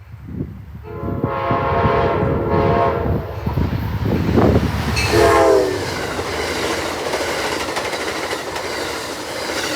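Amtrak passenger train led by a GE P42DC diesel locomotive blowing its horn: a long blast of several notes at once, then a shorter blast that drops in pitch as the locomotive passes. A loud rumble of the engine and the cars on the rails follows and runs steadily to the end.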